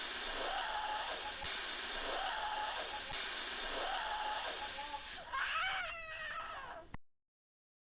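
Cartoon air-pump hiss of a tutu inflating, in three long gusts about a second and a half apart, each with a faint squeaky tone. Near the end the hiss fades under wavering squeaks, and the sound cuts off abruptly about seven seconds in.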